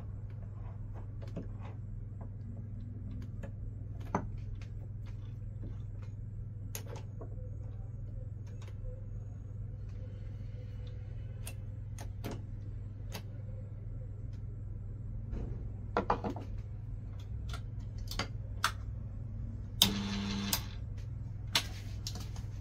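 Chuck key working the jaws of a small lathe's three-jaw chuck as a rebar workpiece is clamped and shifted: scattered metallic clicks and knocks over a steady low hum, with a short rattle near the end.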